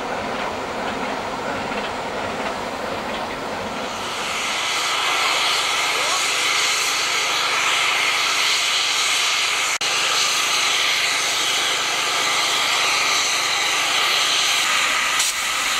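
Steam locomotive 423.0145 rumbling and rattling on the rails, then from about four seconds in a steady, louder hiss of escaping steam that carries on.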